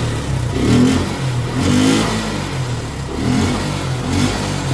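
Motorcycle engine running under way, its pitch rising and falling as the throttle is opened and eased several times. The rider says the bike stops pulling beyond a certain rpm, a fault the video puts down to a clogged air filter.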